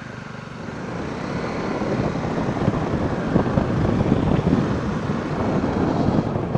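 Motorcycle running on the move, its engine and road noise mixed with wind rushing over the microphone, growing louder over the first couple of seconds.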